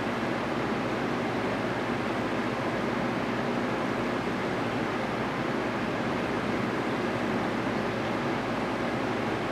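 Steady rush of water circulating in a saltwater reef aquarium, with no change throughout.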